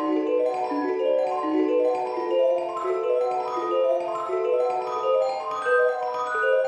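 Background music: a light tune of short, evenly paced notes in mallet-percussion tones, like a marimba or vibraphone.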